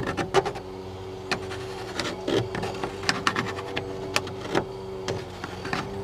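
Pencil scratching on a wooden board in short, irregular strokes, marking out the outline for an outlet cut-out.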